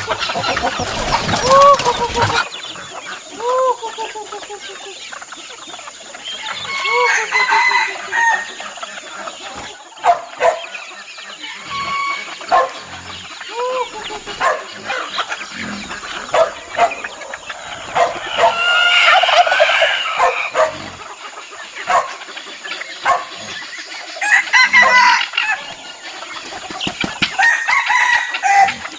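A flock of wild-type chickens clucking as they feed, with roosters crowing several times; the longest, loudest calls come about two-thirds of the way through and again near the end. A loud burst of noise fills the first couple of seconds.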